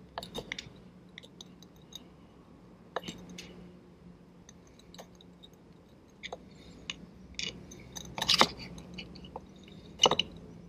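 Flat screwdriver prying and scraping at the old oil seal inside a Ford Type 9 gearbox's cast clutch release bearing guide: scattered clicks and crunches as the seal breaks up, the loudest scrape about eight seconds in and another near the end.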